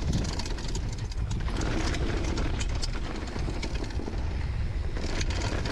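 Downhill mountain bike ridden fast down a dry, gravelly dirt trail: a steady low wind rumble on the body-mounted camera's microphone, with constant clicks and rattles from the tyres on loose dirt and the bike clattering over the rough ground.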